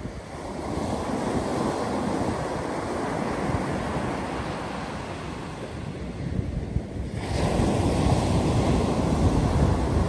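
Ocean surf breaking and washing up onto a sandy beach, with wind buffeting the microphone. The wash grows louder and hissier about seven seconds in.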